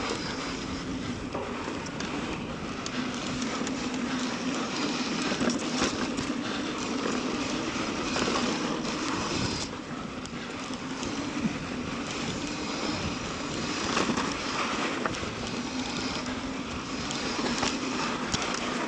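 Mountain bike riding fast down a dirt singletrack: a steady rushing noise of tyres rolling over dirt and rock, with scattered ticks and knocks from the bike rattling over the rough ground.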